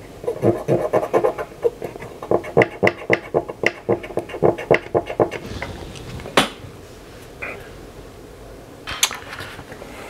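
Quick scratching strokes, about five a second, as corroded traces on a circuit board are scrubbed, stopping about five and a half seconds in; a few single sharp clicks follow.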